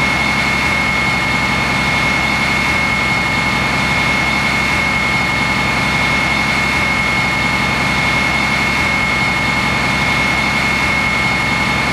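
A heavy engine running steadily with a loud, constant high-pitched whine over it.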